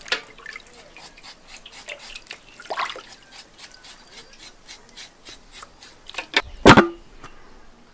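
A knife blade scraping the rind of a slab of pork belly over a basin of water, in many short repeated strokes, with water sloshing and dripping as the rind is cleaned. A louder thump comes near the end.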